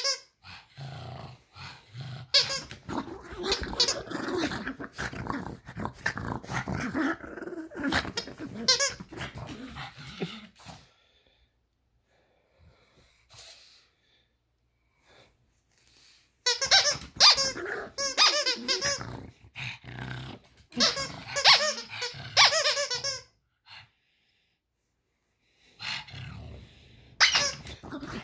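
A pug growling and barking at a squeaky plush hedgehog toy that squeaks again and again in shrill, wavering bursts. The noise stops for a few seconds about halfway, then the squeaking and growling start up again.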